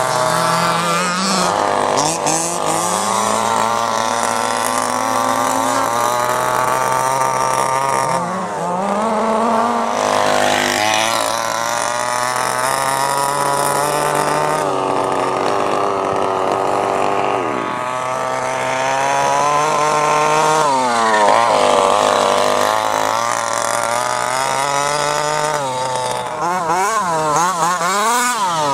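Small two-stroke petrol engine of an HPI Baja SS 1/5-scale RC buggy, a tuned OBR engine being run in. It holds a fairly steady speed, dropping off and rising again several times, with quick repeated up-and-down revs near the end.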